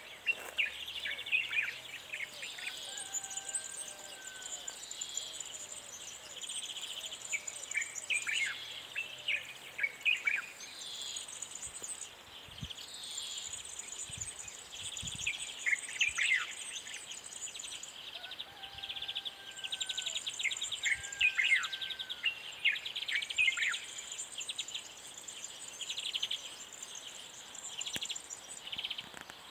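Birds chirping and calling in quick sweeping notes over a high insect buzz that comes and goes in stretches of a few seconds.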